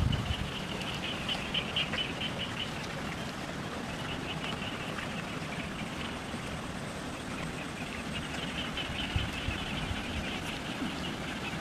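Rural field ambience: a high, rapid chirring chorus of small calling animals that comes and goes in stretches, over a low, steady rumble.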